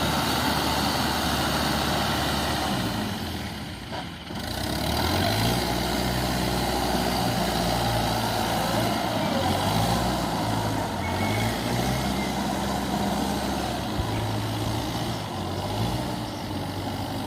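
Diesel engine of a Kubota DC93 combine harvester running as it crawls through a flooded rice paddy. The engine note shifts up and down in pitch, with a brief drop in level about four seconds in.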